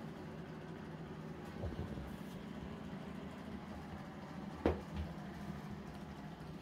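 A steady low mechanical hum in a small tiled room, with a few soft knocks about two seconds and five seconds in.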